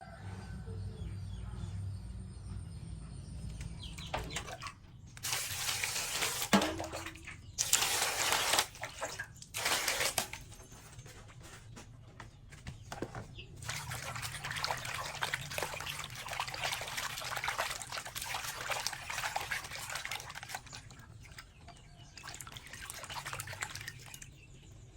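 Water running from a tap into a sink, in a few short loud bursts in the first ten seconds, then a longer, softer stretch of running and splashing water.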